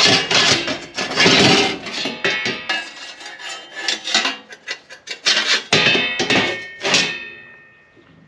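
Thick, black-coated stainless steel fire pit panels clanking, scraping and knocking against each other as they are slotted together. A clang about seven seconds in rings on briefly, then the handling dies away near the end.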